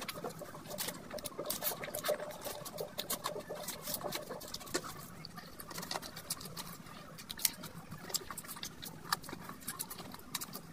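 Close-miked eating sounds: wet chewing and mouth clicks while fingers squish and mix curry-soaked rice, with many small sharp clicks scattered irregularly throughout.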